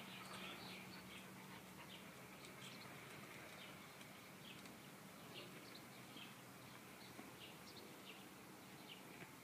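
Near silence, with faint, short, high chirps scattered all through it.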